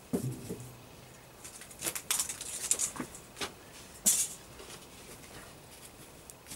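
Handling noises of paper sheets and a flag: a soft knock at the start, then a run of short paper rustles and crinkles, with the sharpest crinkle about four seconds in.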